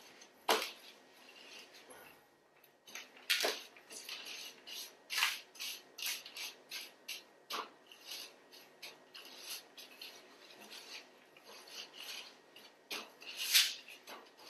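Hands rolling an oiled beef tenderloin through dried herbs in a metal sheet pan: irregular taps and scrapes of hands and meat against the tray, a few louder than the rest.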